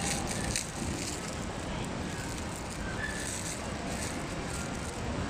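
Steady background noise of a busy public space, an even hubbub with no single sound standing out.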